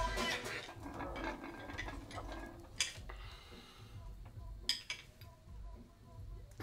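A few sharp metallic clinks of a tool on an old metal drain pipe: one about three seconds in and a quick pair nearly five seconds in. Faint muffled music carries on underneath.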